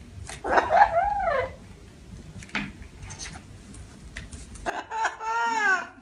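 Amazon parrot calling: two loud squawks about a second long, each rising then falling in pitch, one about half a second in and one near the end. A few faint clicks come between them.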